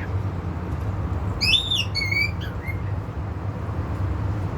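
A bird gives a single two-note call about a second and a half in: a quick arched note, then a flat whistled note. A steady low hum runs underneath.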